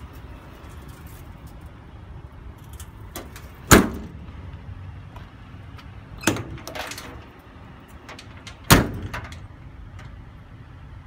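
Metal compartment doors on a bucket truck's utility service body being worked by their paddle latches and banged shut: three sharp bangs about two and a half seconds apart, with smaller latch clicks around them, over a low steady rumble.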